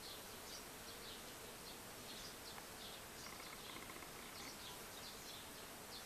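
Small birds chirping, a scattered run of short high chirps, with a brief rapid rattle about three seconds in, over the faint buzz of bees working hollyhock flowers.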